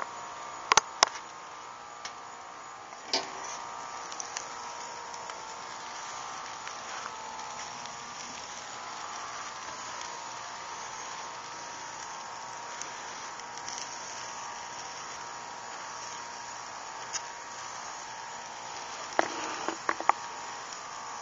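Steady background hiss, with a few sharp clicks about a second in and a short cluster of clicks and knocks near the end.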